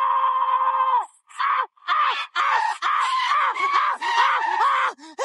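A cartoon character screaming. One long, held, high "ahhh" cuts off about a second in. After a brief pause comes a string of short, arching yelps, about three a second.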